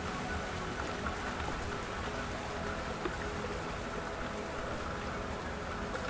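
Steady rain falling on a lake's surface, an even hiss of many small drops.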